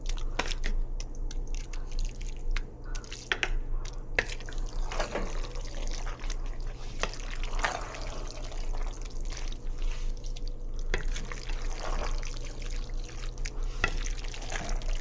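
A utensil stirring and knocking in a pot of spaghetti and meatballs heating on the stove, with scattered clicks and clinks over a steady low hum.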